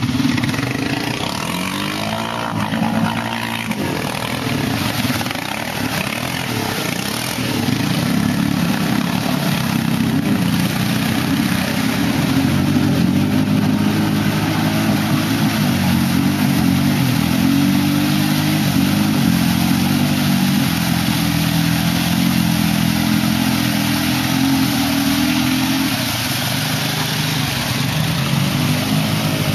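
Snorkeled ATV engine revving hard under load while the four-wheeler churns through deep mud and water, its pitch rising and falling with the throttle; the engine is loudest from about seven seconds in and eases off near the end.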